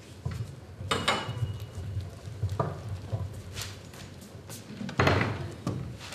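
Performers' footsteps and shuffling on a stage floor: scattered knocks and thuds, the loudest about a second in and about five seconds in.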